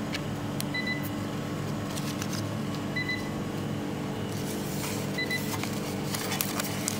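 Short electronic beep from a Bizerba label-printing scale, repeating about every two seconds, over a steady low hum. Clicks and rustles of a new label roll being handled and fitted into the printer run through it.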